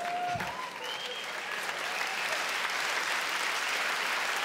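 Theatre audience applauding after a punchline. The clapping builds over the first two seconds and then holds steady, with a few voices calling out near the start.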